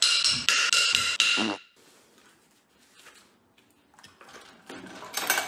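A rapid run of clicks over a steady high ringing for about a second and a half, then faint ticks, then a clatter of metal engine parts near the end as the aluminium cylinder head is handled on the bench.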